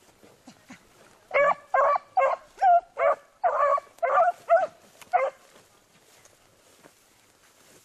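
Beagle hounds baying: a run of about nine or ten short, loud bays over some four seconds, given while trailing a rabbit's scent through grass, then they fall silent.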